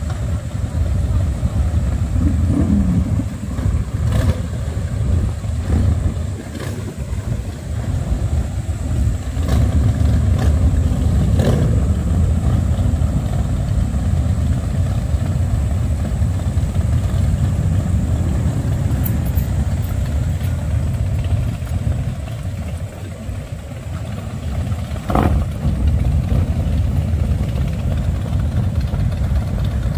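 Many cruiser and touring motorcycles running together in a deep, low rumble. The sound swells and dips as riders rev their engines.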